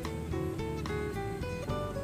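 Background music: an instrumental melody of plucked notes, each struck sharply and fading, about two a second.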